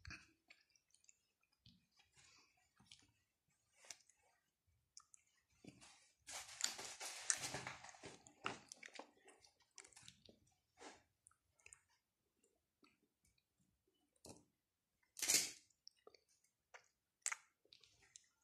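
Handmade fabric quiet book being handled and leafed through: cloth and felt pages rustling and brushing, with scattered small clicks and taps. A longer rustle comes about six to eight seconds in, and a short sharp sound about fifteen seconds in.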